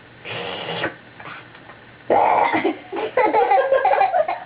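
A short burp about a quarter second in, followed from about two seconds in by loud, voice-like vocalizing that shifts in pitch.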